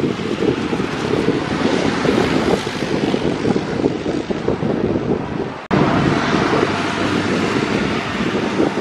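Jet airliner engines at takeoff power, a steady rushing noise mixed with wind buffeting the microphone. The sound breaks off abruptly about two-thirds of the way through and resumes at once as a similar takeoff noise.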